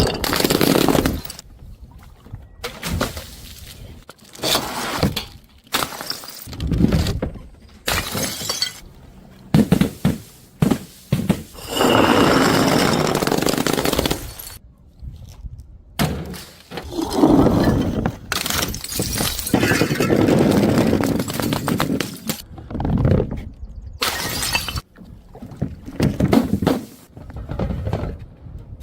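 Glass bottles and jars being smashed one after another: repeated sudden crashes of shattering glass. Some crashes run on for a few seconds of crunching, tinkling shards.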